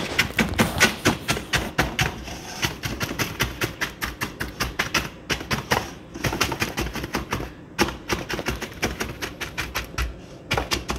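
Rapid repeated taps, about four a second, of a utensil pressing a buttered cookie-crumb crust down into a dish, broken by a few short pauses.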